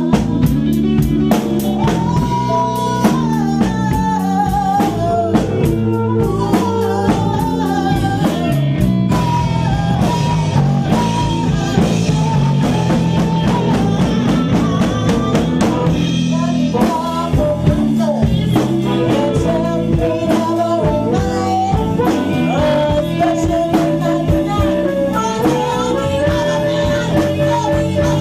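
Blues band playing live through its amps: drum kit keeping a steady beat under electric guitar, with a woman's vocals.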